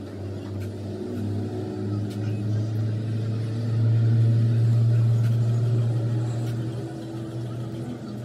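A motor vehicle's engine running, a steady low hum that swells to its loudest about four to five seconds in and then fades.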